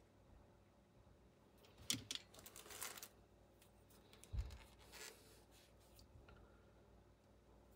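Dental pick scraping carbon build-up off AR-15 bolt parts: a sharp click and about a second of scratchy scraping about two seconds in, a soft low knock at about four and a half seconds, then a brief scrape; otherwise quiet.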